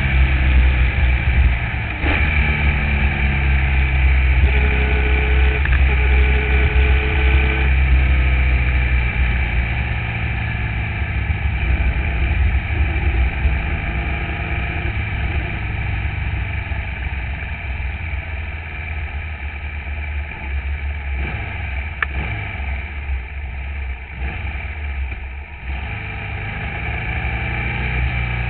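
Formula Vee's air-cooled Volkswagen flat-four engine running hard, recorded onboard with heavy wind rumble on the microphone. The engine note rises and falls with gear changes and throttle, with a break in the note about two seconds in.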